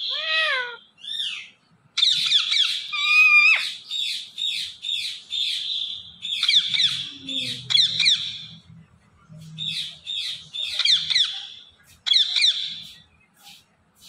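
Rose-ringed parakeet (Indian ringneck) calling: a couple of short arched calls, then from about two seconds in a long run of shrill, quickly repeated downsweeping squawks and chatter, broken by brief pauses.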